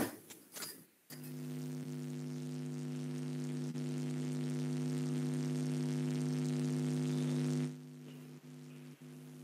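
Steady electrical hum with a buzzy stack of overtones. It starts suddenly about a second in, swells slowly, then drops to a quieter level near the end.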